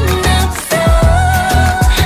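K-pop dance song: a woman's voice holds one long sung note over a steady drum beat.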